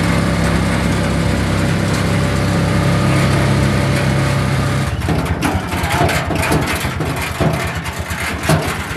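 A motor vehicle's engine running: a steady low hum for about five seconds, then an abrupt change to a choppier, uneven rumble with scattered knocks.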